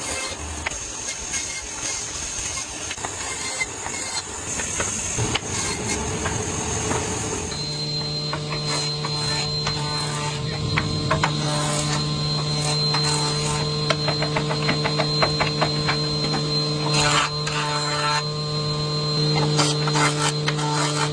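A woodworking power tool running with a hissing whine. About seven and a half seconds in, it gives way to a steady motor hum with many sharp clicks and knocks over it.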